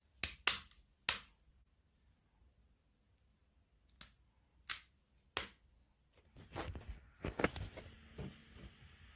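A handful of sharp, separate clicks, then a quicker run of clicks and knocks near the end.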